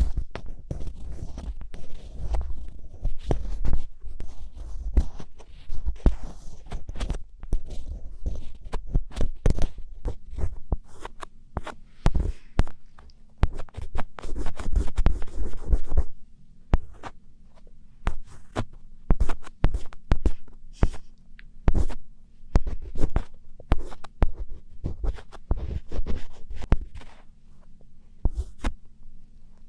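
ASMR scratching recorded right at the microphone: rapid, dry scratching and scraping strokes in quick irregular runs, with soft low thumps of contact with the mic.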